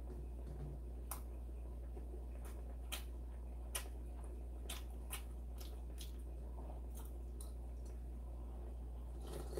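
A man eating from a spoon and chewing: scattered short, sharp mouth clicks and smacks at uneven intervals, over a faint steady low hum.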